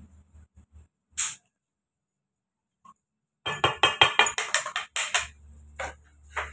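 Metal kitchenware being handled: a sharp click about a second in, then a rapid run of clattering, clinking knocks. A low steady hum sets in after it.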